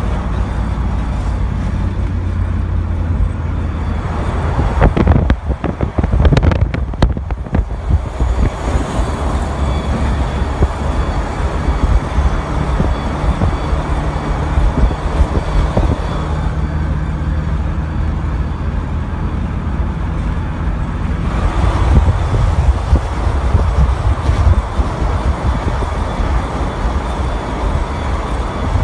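Car driving with steady engine and road rumble and a thin, high-pitched squeal from the brake rotor and wheel area. The bearing has been checked and found fine, and nothing is lodged between the rotor and its dust shield. A few sharp knocks or bumps come about five to seven seconds in.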